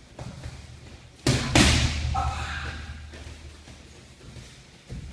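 Two sharp smacks of boxing gloves hitting focus mitts about a second in, a third of a second apart, echoing in the room.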